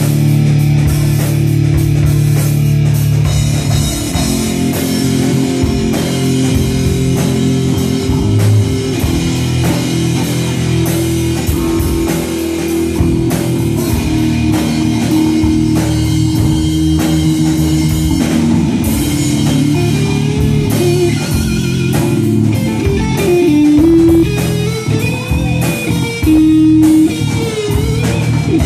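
Live rock band playing: electric guitar, bass guitar and drum kit, loud and continuous, with bending melodic notes in the second half.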